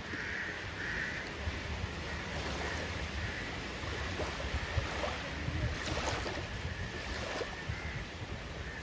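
Sea waves washing onto the shore, with wind buffeting the microphone and a low steady rumble underneath.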